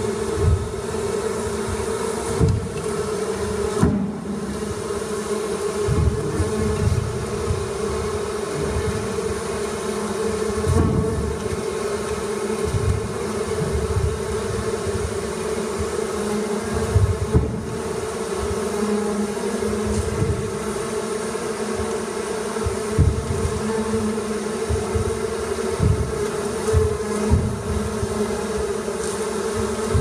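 Steady buzzing drone of a bee swarm, with dull low thuds every second or two.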